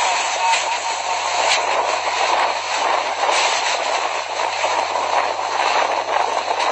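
Whirlwind winds blowing hard, a loud steady rushing noise, with a few short knocks from flying debris in the first few seconds.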